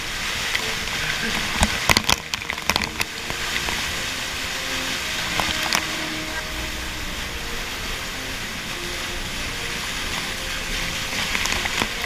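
Small waterfall pouring into a plunge pool, a steady rush of churning, splashing water close to the microphone. A cluster of sharp splashes and knocks comes about two seconds in, with single ones near six seconds and near the end.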